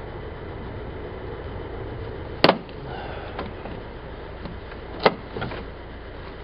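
Two sharp clicks, about two and a half seconds apart, with a few fainter ticks, as a screwdriver works at the plastic finger plate of a VW camper's interior door handle, over a steady low background hum.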